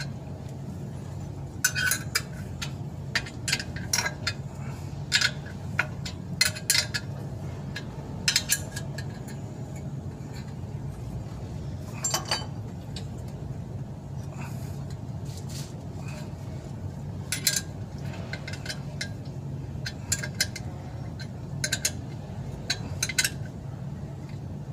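Metal wrench clicking and clinking on the bolts of a clutch pressure plate as they are tightened, in short bursts of sharp clicks every second or two, over a steady low hum.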